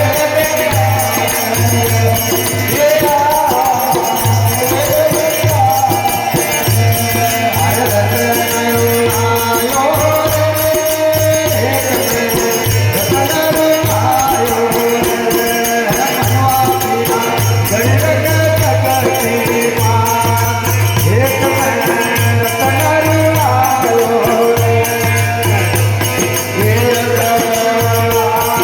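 Rajasthani devotional bhajan: chant-like singing in repeating phrases over steady rattling, jingling hand percussion, with a low tone that comes and goes underneath.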